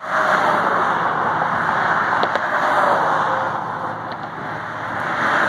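Road traffic on the roadway alongside: a steady rush of tyres and engines that eases a little about four seconds in, then builds again as another car comes near.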